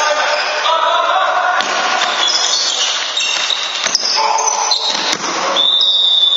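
Indoor handball in a reverberant sports hall: players shouting, and the ball thudding on the wooden floor and smacking against hands a few times. Near the end a long, steady referee's whistle blast starts, stopping play.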